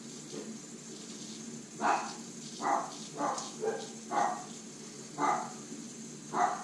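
A dog barking repeatedly, about seven short barks roughly a second apart, starting about two seconds in.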